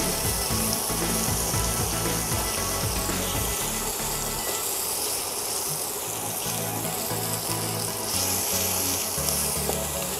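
Ground chilli-shallot spice paste sizzling in hot oil in a frying pan as it is stirred with a silicone spatula, over background music with a stepping bass line.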